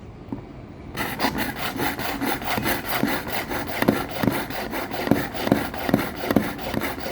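Steel knife blade drawn back and forth through the polishing slot of a handheld Misamo 4-in-1 kitchen knife sharpener, giving quick, repeated rasping strokes that start about a second in: the final polishing stage of sharpening.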